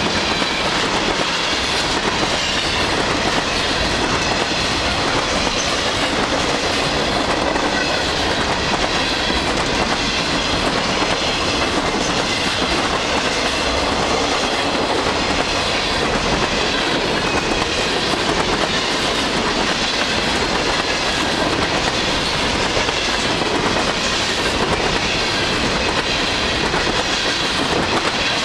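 Freight cars of a long mixed freight train rolling past close by, their wheels running on the rails in a loud, steady rumble.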